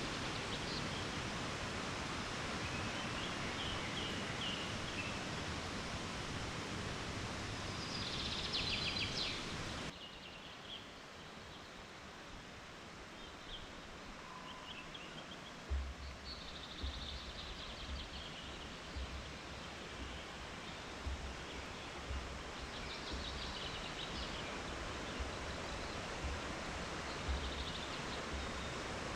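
Outdoor woodland ambience: a steady rushing background noise with birds chirping now and then. The background drops abruptly about ten seconds in, and from about halfway on low bumps and knocks come through underneath.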